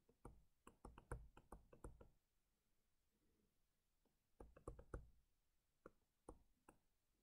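Faint, sharp taps and clicks of a stylus pen on a tablet screen while handwriting: a run of taps in the first two seconds, then another run from about four and a half seconds in.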